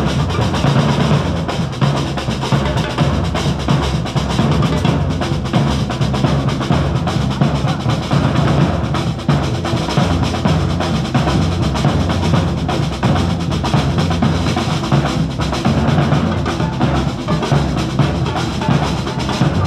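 Street drum line of marching bass drums and snare drums playing loud, continuous drumming.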